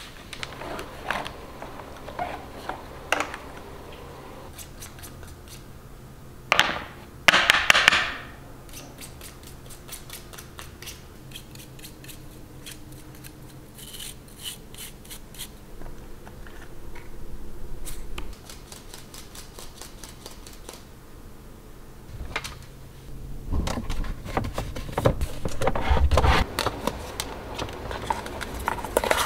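Close-up handling of a robot vacuum's plastic dustbin and filter: scattered clicks and rattles of parts, a loud short burst of noise about seven seconds in, and a small stiff brush scratching dust off the filter. Near the end, rubbing and knocking as plastic containers are handled.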